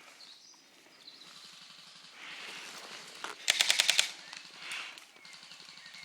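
Airsoft gun firing a short fully automatic burst of about seven rapid shots, lasting about half a second, a little past the middle.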